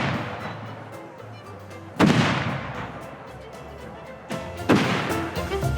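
Loud booms, one about two seconds in and a double bang a little past four seconds, each dying away slowly, over faint music.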